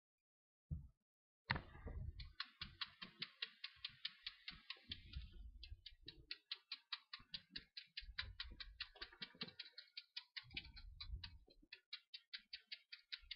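Chef's knife thinly slicing the scored white part of a green onion on a plastic cutting board. Quick, even, faint taps of the blade on the board, about five a second, starting about two seconds in, with a few short pauses.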